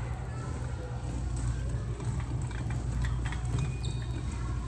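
Push sled loaded with a weight plate sliding along artificial turf as it is pushed: a steady scraping swish with small ticks, over a steady low hum.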